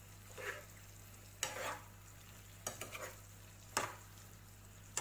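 A spatula stirring and scraping through saucy Manchurian balls in a nonstick frying pan: a short scrape or knock about once a second, over a low steady hum.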